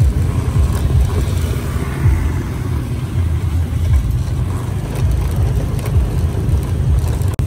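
Steady low rumble of a motor vehicle on the move.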